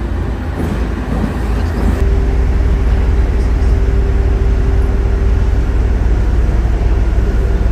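Train noise at a railway platform: a steady low rumble that grows louder about two seconds in, joined by a constant machine hum.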